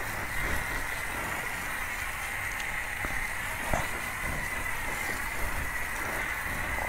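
Steady hiss of triple-foam soap spraying from a self-serve car wash foam brush as it is worked over a motorcycle, over a constant high whine. There is one faint knock midway.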